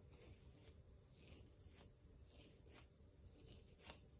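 Faint, repeated scraping strokes of a scalpel blade drawn across the cut-resistant fabric of an anti-slash top's sleeve, with a sharper tick near the end; the blade does not go through.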